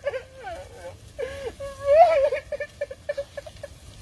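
A man wailing and sobbing in grief, crying like a child, in long cries whose pitch rises and falls; the loudest cry comes about two seconds in.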